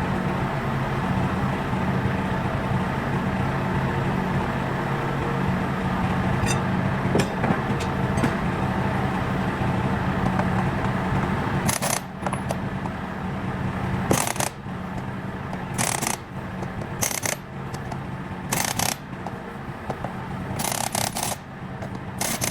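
An engine running steadily at idle, with a few light clicks and then, in the second half, a series of short bursts of hissing noise about one to two seconds apart.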